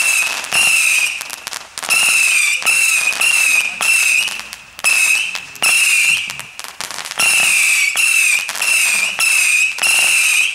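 Weco Aragon 120-shot whistler battery firing: aerial whistlers go off in quick succession, about two a second, each a loud wavering whistle lasting about half a second. Sharp pops come between them, with short lulls a few times.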